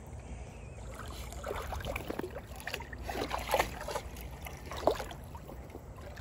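Water splashing and sloshing in a plastic kiddie pool as a dog paws at the bottom, in irregular splashes that are loudest about three and a half and five seconds in, over a low steady rumble.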